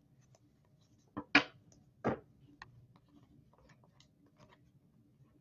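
Baseball trading cards being flipped through by hand: three short swishes of cards sliding against one another, about a second and two seconds in, then faint light clicks and rustles.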